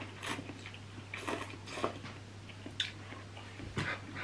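People slurping and chewing instant noodles in broth, in several short noisy bursts, with a light click of cutlery against a bowl.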